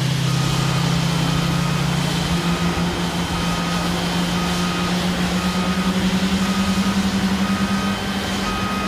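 Boeing 777F's two GE90 engines idling on the ground: a steady low drone that creeps up slightly in pitch and pulses in and out in the second half. A pushback tug's warning beeper sounds about once a second throughout.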